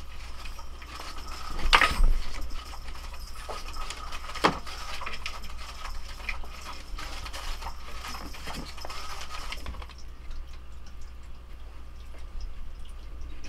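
Tabby cat clambering on a wooden shelf: scuffing and small knocks of paws and claws on the wood, with a louder scrabble just under two seconds in and a sharp knock about halfway through the first five seconds.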